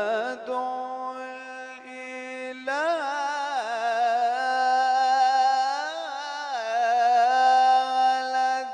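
A man singing an Islamic ibtihal solo, with no instruments, drawing the word "fad'u" out into a long melismatic run. Quick wavering ornaments give way to long held notes, with a slow rise and fall in pitch about two thirds of the way in.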